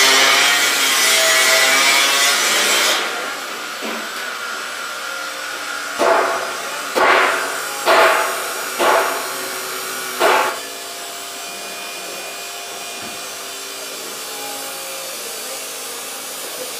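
Power tool working stainless steel: a steady abrasive rubbing noise that stops about three seconds in, then five short bursts about a second apart as the tool is briefly run again, leaving a faint steady hum.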